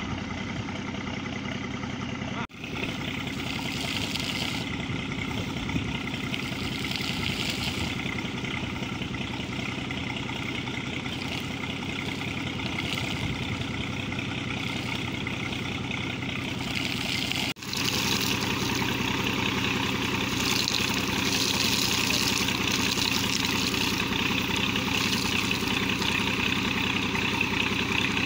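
Air compressor engine running steadily while compressed air forces water and sludge up out of a borewell casing, with a hissing, splashing rush of air and water over the engine. The hiss is louder after a sudden cut a little over halfway through.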